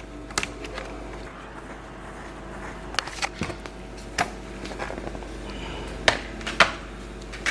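Scattered light clicks and taps of a laptop screen panel and its plastic frame being handled and taken apart, a few seconds apart, over a low steady hum.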